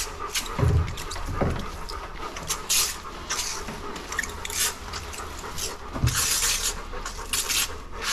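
Bernese mountain dog panting in a grooming tub while shampoo is squirted from squeeze bottles and scrubbed into its soaked coat: irregular short hissing squirts, with a few dull knocks.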